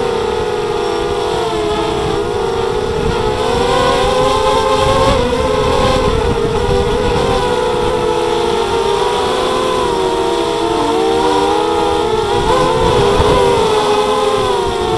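Drone motors and propellers whining, several close pitches wavering up and down together as the throttle changes, with wind rumbling on the microphone.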